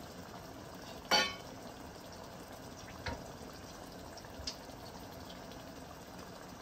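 Pot of egusi soup simmering on the stove, a steady low bubbling hiss. A short louder sound comes about a second in, and a faint knock about three seconds in.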